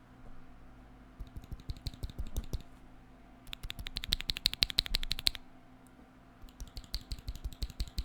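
Typing on a Keychron Q1 mechanical keyboard fitted with NK x Kailh Cream linear switches lubed with Krytox 205g0, MT3 keycaps, case foam and a tape mod. There are three runs of quick keystrokes with short pauses between them, and the middle run is the loudest.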